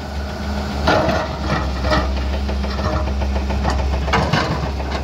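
Hyundai 210 crawler excavator's diesel engine running steadily, with a few sharp knocks and clatters of stone as the bucket works among the rocks.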